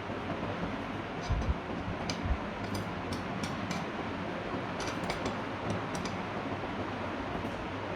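Ceiling fan running with a steady whir and irregular light ticks, the 'tik tik' noise of a worn bearing, with two low thumps in the first few seconds.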